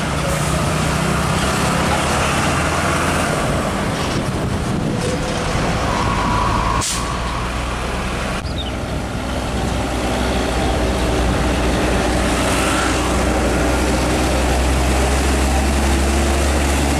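Diesel engines of semi-trailer trucks running as they drive slowly past, with tyre and road noise. Near the end an Isuzu Giga tractor unit draws close and its engine drone becomes the loudest sound.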